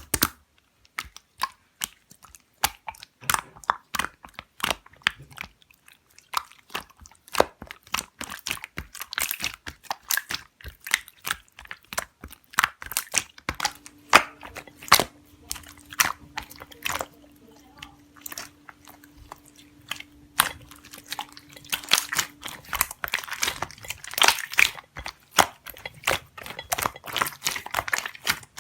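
Slime being pressed and squeezed by hand, giving a dense, irregular run of crunchy crackles and pops. A faint steady hum sits underneath through the middle stretch.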